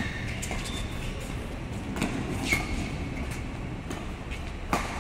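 Badminton rally: sharp racket strikes on the shuttlecock and brief high squeaks of shoes on the court, one strike near the end among the loudest. A steady low rumble of the hall runs underneath.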